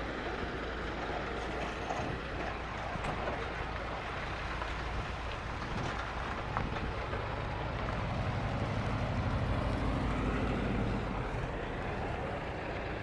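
Street noise with a motor vehicle's engine running, its low hum growing louder about eight seconds in and easing off near the end.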